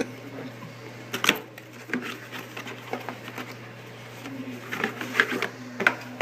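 Clicks and crinkling from handling the packaging as a sealed trading-card box is opened, with one sharp click about a second in the loudest.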